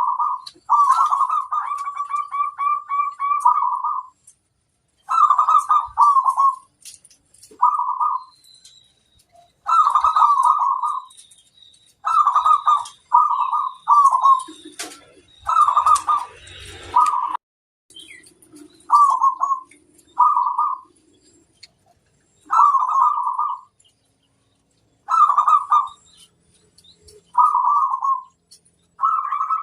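Zebra dove (perkutut) cooing: a string of separate phrases of quick, trilling coos, each lasting about a second, with short pauses between them.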